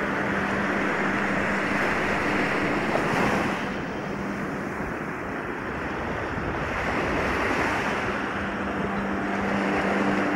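Shallow surf washing up a sandy beach: foaming swash running over wet sand and draining back, rising and falling in swells a few seconds apart.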